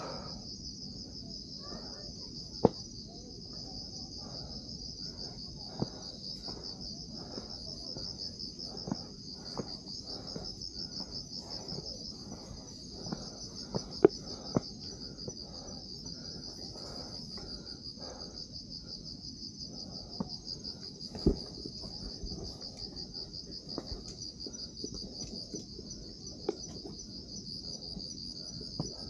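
A night-time insect chorus: a steady, fast-pulsing high trill with a fainter, higher trill coming and going. A few sharp clicks or knocks stand out louder, around a tenth of the way in, about halfway and about two-thirds through.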